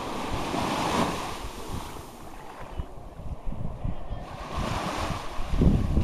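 Ocean waves breaking and washing up on a sandy beach, the surf swelling about a second in and again near the end, with wind rumbling on the microphone.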